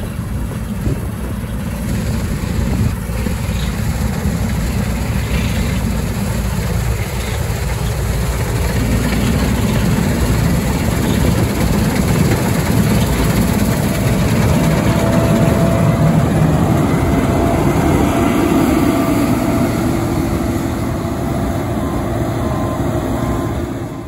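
Case IH 2388 Axial Flow combine harvester running under load while cutting barley: the steady sound of its six-cylinder turbocharged Cummins engine and threshing machinery. It grows louder from about nine seconds in as the machine comes close.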